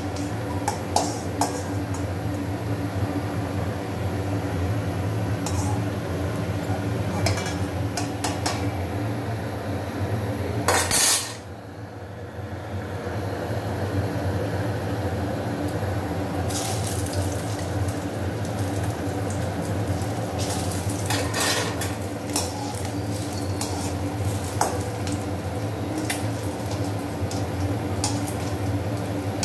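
A perforated steel ladle clinks and scrapes against a stainless steel kadai as bread slices are turned in frying oil. Sharp metallic clinks come at irregular moments over a steady low hum and the hiss of the frying. A loud crackle about eleven seconds in is followed by a brief drop in the sound.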